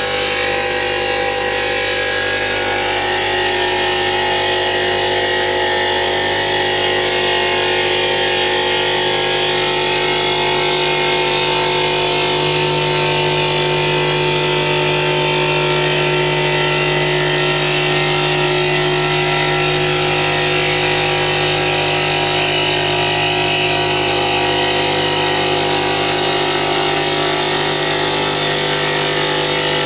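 CNC stone polishing machine running steadily: a motor hum with several held tones under a constant high grinding hiss, the hum growing a little stronger about halfway through.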